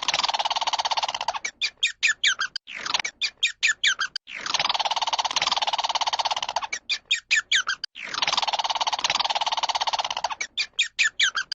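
An animal call repeated over and over: a falling sweep into a long buzzing rattle, then a run of about eight quick chirps. The whole call recurs about every four seconds, three times.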